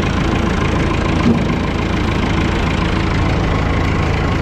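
Engine idling steadily, with one short knock about a second in.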